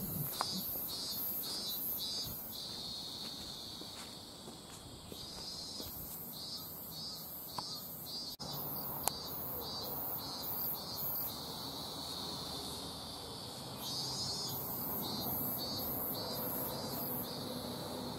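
Insects singing: a high-pitched pulsing trill of about three to four pulses a second, coming in bouts of a few seconds over a steady high buzz.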